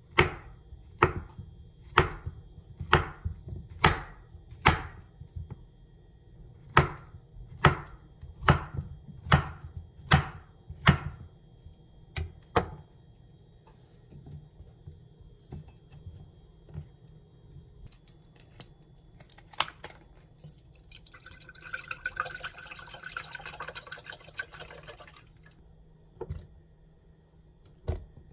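Knife chopping on a cutting board, about a dozen sharp strokes roughly a second apart, then a few seconds of running water near the end.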